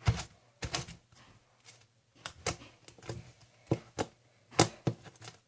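Sticky fluffy slime being squeezed and stretched by hand, giving irregular sharp clicks and pops.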